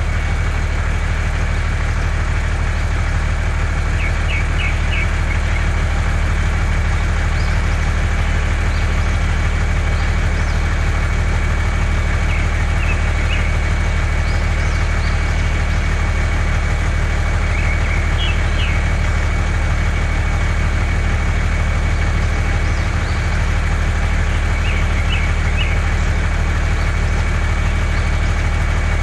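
An engine running steadily at idle, with a constant deep hum and a thin, steady high whine over it.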